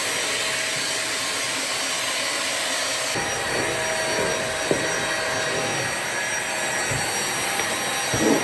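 Vacuum cleaner running with a steady rushing noise. About three seconds in its sound shifts and turns more uneven, with a brief bump near the middle and a louder one near the end.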